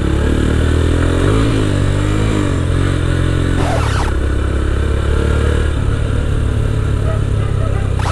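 Motorcycle engine running under way as it is ridden, with wind rushing over the microphone. The engine pitch wavers up and down in the first few seconds. Two short whooshing sweeps come about halfway through and again at the end.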